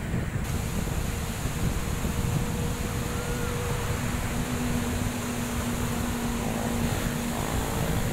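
Steady rushing of a river in flood, muddy water pouring past in a broad churning current, with wind buffeting the microphone. A faint steady hum lies under it.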